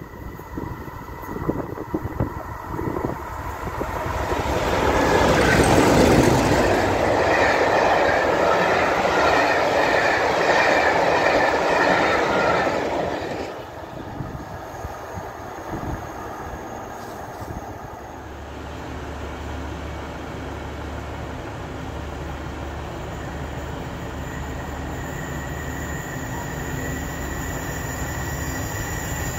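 A pair of Class 50 diesel locomotives with English Electric V16 engines passes at speed hauling a train. Engine and wheel noise builds over a few seconds, stays loud for about seven seconds, then drops away sharply. A steady low diesel hum follows in the later part.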